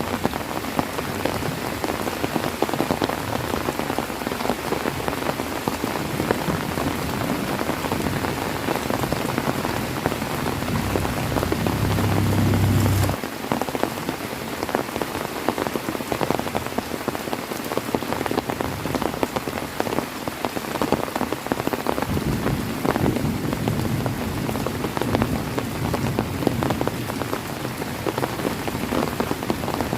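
Heavy rain falling steadily, a dense patter of drops on surfaces. About ten seconds in, a low rumble builds under the rain and cuts off suddenly a few seconds later.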